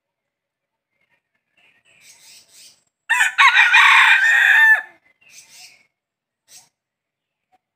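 Red junglefowl rooster crowing once, a single crow of nearly two seconds starting about three seconds in. Faint short high chirps come before and after it.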